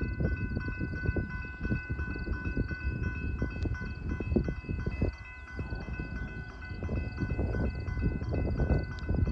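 Freight train passing over a grade crossing: a steady run of clattering wheel knocks, with a steady high-pitched ringing tone held over it.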